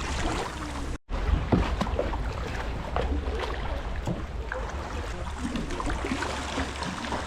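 Water lapping and splashing around a kayak at sea, with wind rumbling on the microphone. The sound cuts out completely for a moment about a second in.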